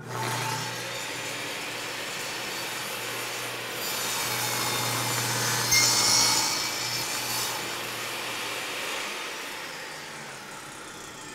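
Portable table saw running with its blade crosscutting a board on a crosscut sled. The cut is loudest about six seconds in, and the sound fades over the last few seconds.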